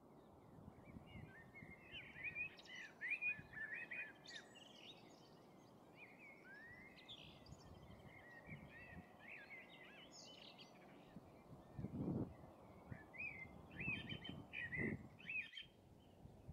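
Small songbirds chirping and twittering, many short high calls close together, over a steady low outdoor rumble. There are a few louder low rumbles about two thirds of the way in and again near the end.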